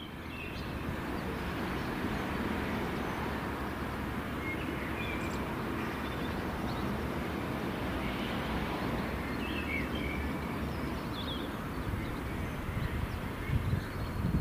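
Steady outdoor background noise with a few short bird chirps, and a few low thumps near the end.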